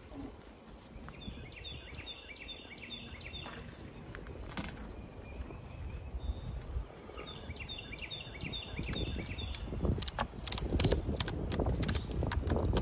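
A songbird sings two phrases, each a quick run of repeated high notes. From about ten seconds in come a run of knocks, clicks and scrapes as hive parts are handled, louder than the birdsong.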